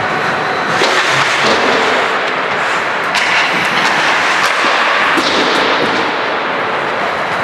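Ice hockey play: a steady scraping hiss of skate blades on the ice, broken several times by sharp clacks of sticks and puck.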